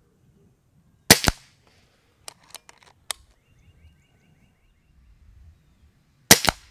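Two shots from a Kral Puncher Breaker .22 PCP air rifle, about five seconds apart, each a sharp crack with a second crack close behind it. Between them come a few light clicks as the rifle's action is worked for the next shot.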